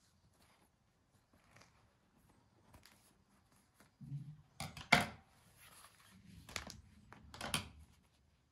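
Kitchen scissors snipping through thin flatbread sheets: faint snips at first, then sharper, louder snips and handling of the bread about halfway through and again near the end.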